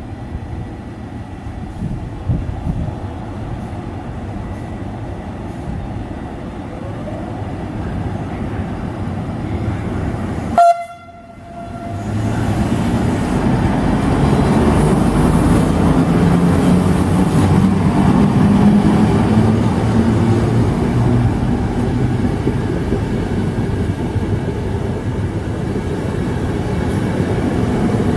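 Electric locomotive hauling InterCity passenger coaches through the station, growing louder as it approaches. A brief horn toot about ten seconds in, then a louder rumble with the rhythmic clatter of the coaches' wheels over the rail joints as the train passes close by.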